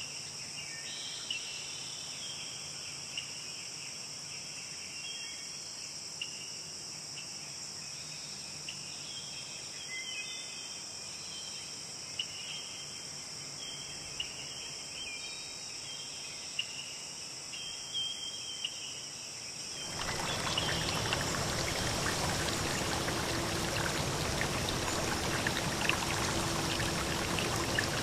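Steady high-pitched insect chorus with scattered short chirps over it; about twenty seconds in it cuts abruptly to the louder, even rush of a flowing stream.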